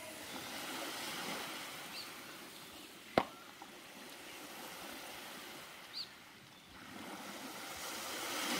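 Small waves washing onto a beach, a steady wash of surf that swells near the end, with one sharp click about three seconds in.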